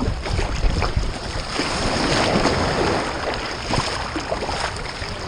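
Rushing wind and surf noise picked up by a GoPro strapped to a dog's back, swelling about two seconds in and easing off, with scattered small knocks and rubs on the camera.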